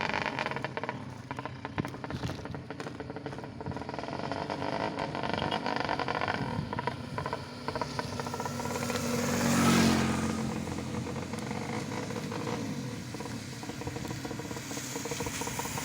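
Underbone motorcycle engine bored out to 200cc, running with an uneven ticking clatter, then revved once about ten seconds in and dropping back to a lower, steady run.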